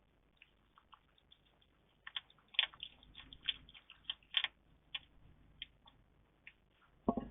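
Small pet animal making a run of light, rapid clicks and taps, densest in the middle, then one short, sharper burst near the end.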